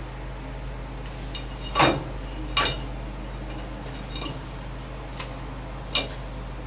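A young crow moving about in its wire-mesh cage, making a handful of short metallic clinks and rattles spread a second or so apart. The sharpest come about two seconds in and near the end.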